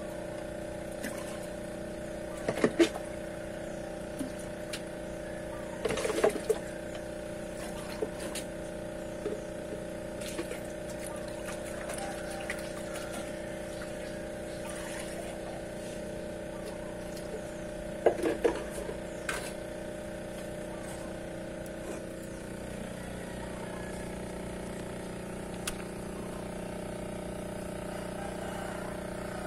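Aquarium pumps humming steadily while water from a return pipe splashes into a tank. A few sharp knocks and clatters come about 3, 6 and 18 seconds in.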